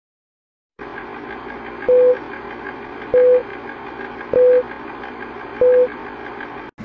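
Film-leader countdown sound effect: four short, loud beeps at one mid pitch, about a second and a quarter apart, over a steady hiss with a faint fast flicker. The sound starts about a second in and cuts off suddenly near the end.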